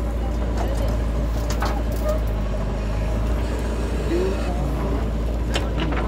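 JCB backhoe loader's diesel engine running steadily under load as the backhoe arm swings back from the trolley to the dig, with a few short knocks.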